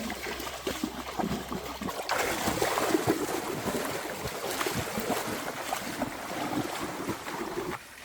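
Water splashing and rushing, a continuous noisy wash that grows louder about two seconds in and cuts off sharply near the end.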